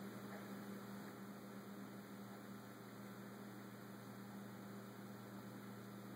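A faint, steady low electrical hum over a light hiss, with nothing else happening.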